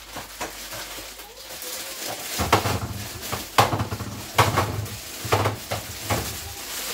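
Fruit being set down into a fruit tray: a series of knocks and soft thuds, roughly one a second, starting about two seconds in.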